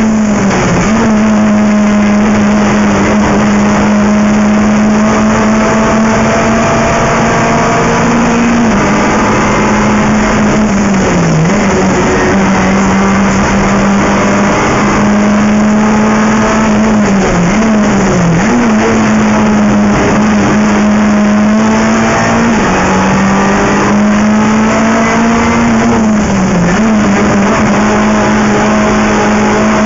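Renault Clio III Cup race car's 2.0-litre four-cylinder engine heard from inside the cabin, running hard at high, nearly steady revs. Its pitch dips briefly several times and climbs back.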